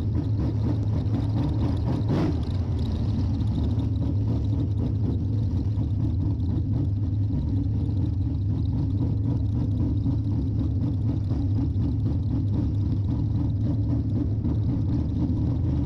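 Wingless sprint car engine running steadily at pace-lap speed, heard from inside the cockpit, being warmed up on a chilly night. There is a short knock about two seconds in.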